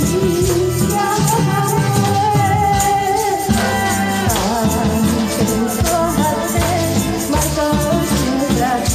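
A woman singing a song into a microphone, amplified over a backing track, with a handheld tambourine shaken in time.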